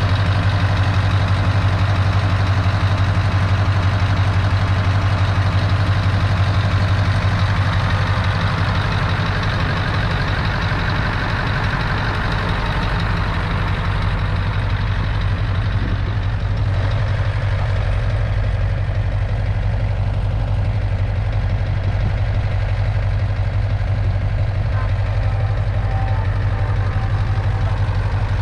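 Scania 580's 15.6-litre V8 diesel idling steadily, an even low drone that softens a little about halfway through.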